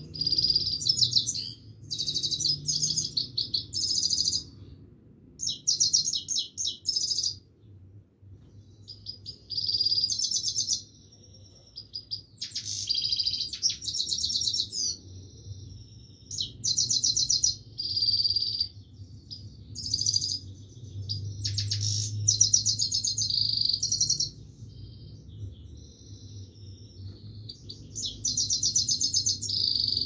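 A caged Himalayan (grey-crowned) goldfinch sings a rapid, twittering song. It comes in repeated phrases of one to three seconds, separated by short pauses.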